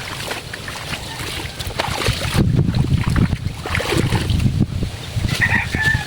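Water splashing and sloshing as clothes are washed by hand in a basin, with uneven strokes. Wind rumbles on the microphone throughout.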